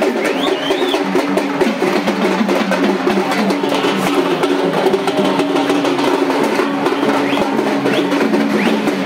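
Procession drums beating in a dense, fast, unbroken rhythm under a steady pitched line of music, with a few short rising high notes over it.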